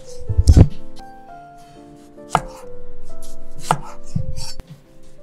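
Chef's knife slicing a tomato on a wooden cutting board: the blade knocks on the board, loudest twice in quick succession about half a second in and then roughly once a second, with the sound of the blade cutting through the tomato in between.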